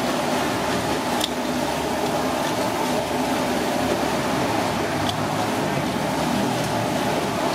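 Steady mechanical background hum, with a couple of faint sharp clicks of scissors snipping through a giant isopod's shell, about a second in and again near the end.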